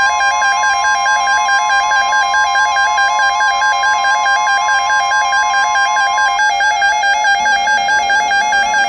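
Synthesized emergency alert tone: a loud, rapid high-low warble with a steady higher tone held alongside it, which cuts off about six and a half seconds in. It is the attention signal that comes before a spoken nuclear power plant warning.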